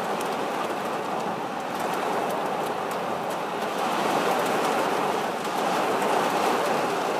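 Torrential rain pelting the glass and body of a storm chaser's vehicle, heard from inside: a steady dense rush of rain with many small drop taps throughout.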